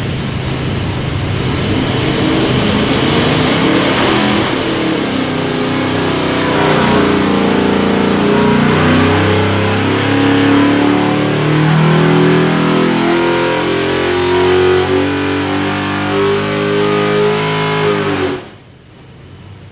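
A 632-cubic-inch big-block Chevy V8 with Holley EFI and a solid roller cam running loud on the engine dyno during a test pull. The sound drops away suddenly near the end.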